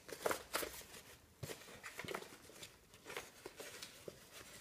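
Faint rustling and soft irregular taps as a fabric helmet liner is handled and worked into an open-face motorcycle helmet's shell.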